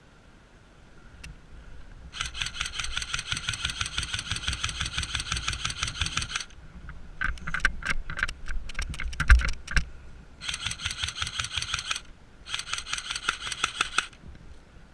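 Airsoft rifle firing on full auto: one long burst of about four seconds, a scatter of single shots, then two shorter bursts near the end.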